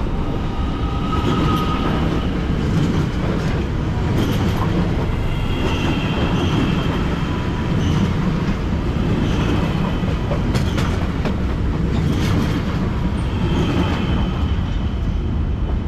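Electric passenger trains rolling slowly past close by: a steady rumble of wheels on rail, with faint high wheel squeal coming and going and a few clicks.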